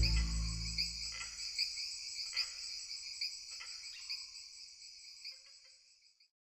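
Crickets chirping steadily, with a few short chirps over them, fading out to silence about six seconds in.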